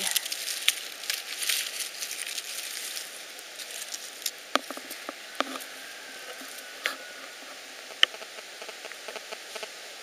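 Rustling and crackling of grass and dry forest litter being handled and brushed through, with scattered sharp snaps and clicks; busier and louder in the first few seconds.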